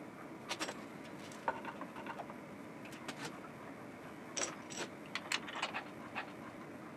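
Metal angle clamps being handled and tightened on a glued wooden corner joint: irregular light clicks and small rattles, several in quick clusters about four to six seconds in.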